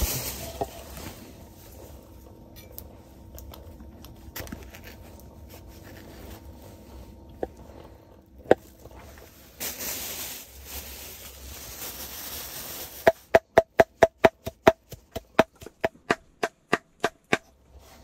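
Chef's knife chopping fresh leafy herbs on a wooden cutting board: a run of about twenty quick, even knocks at roughly four a second over the last five seconds. Before that, a plastic produce bag rustles while the herbs are taken out, with a few scattered clicks.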